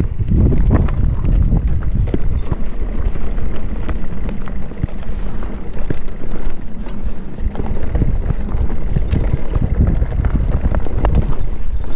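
Wind buffeting the microphone of a camera on a mountain bike on a fast trail descent, with a steady stream of clatters and knocks as the bike rattles over rough, rocky ground.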